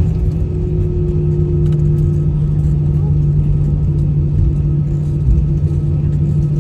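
Airbus A320 cabin noise on the runway after touchdown: a steady engine hum with two held tones over a low rumble from the airframe and wheels.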